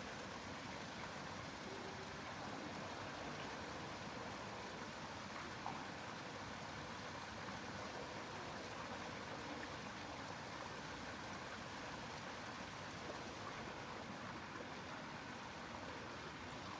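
Steady, even background hiss, fairly faint, with no other distinct sound apart from a couple of tiny clicks.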